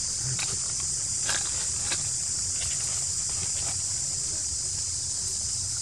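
Steady high-pitched drone of a forest insect chorus, with a few short clicks or rustles in the first two seconds over a low background rumble.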